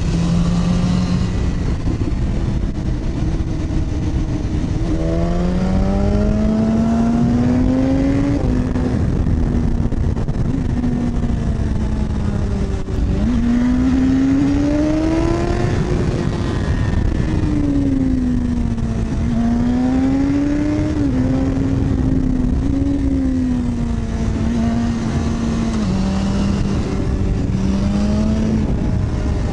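Inline-four sportbike engine heard from the rider's seat at road speed, its pitch climbing and falling with the throttle several times, with a couple of sudden drops in pitch, over a steady rush of wind.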